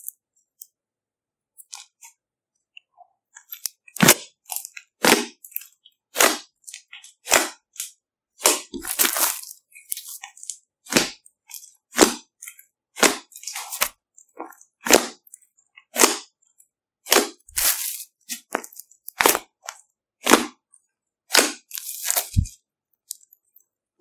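Fluffy slime poked and pressed by fingers, trapped air popping out of it in loud sharp cracks about once a second, after a few seconds of faint clicks.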